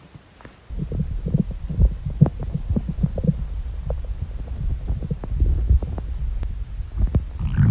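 Upset stomach gurgling and rumbling after drinking a whole can of soda, heard up close against the belly. From about a second in there is a dense low rumble full of quick irregular pops, with a brief hissing rustle near the end.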